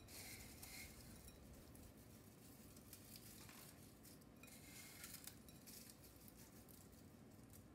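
Near silence, with faint rustling and a few small clinks as crushed tortilla chips are sprinkled by hand over a casserole in a glass baking dish.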